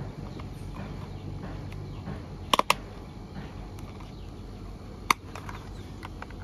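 Plastic toy car parts clicking and knocking together as the body of a toy police car is pressed onto its chassis: a quick double click about two and a half seconds in and a single sharp click about five seconds in, with fainter taps between.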